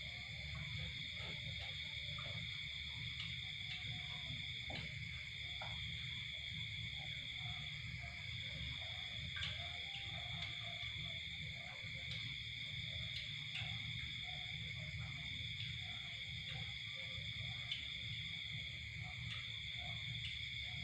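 Steady high-pitched chorus of evening insects, a constant trill, over a low rumble, with scattered light clicks of chopsticks against a rice bowl.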